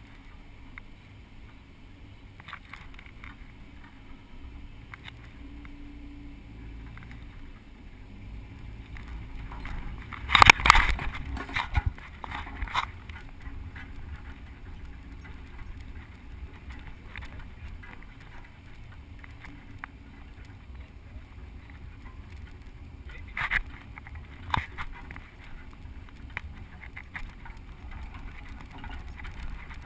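Open-topped Toyota Land Cruiser driving slowly on a rough dirt track, a steady low rumble of engine and wind. About ten seconds in comes a loud burst of bangs and rattles as the vehicle jolts over rough ground, and a smaller one comes about two-thirds of the way through.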